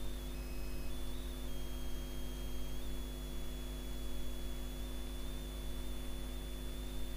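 Steady electrical mains hum with a faint, thin high whine over background hiss, with no other sound.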